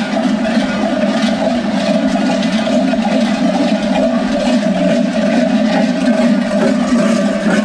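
Many large goat bells strapped around the waists of Skyros Geroi dancers, clanging loudly and without a break as the dancers move.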